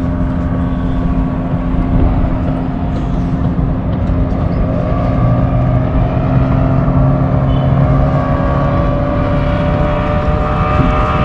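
A motor engine running steadily, its pitch rising about five seconds in.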